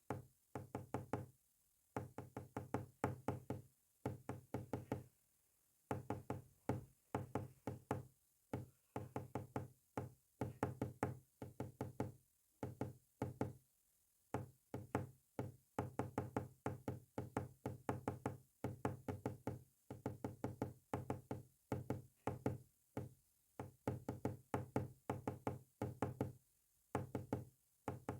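Morse code sent as rapid short pulses of a low buzzing tone, in groups separated by brief pauses.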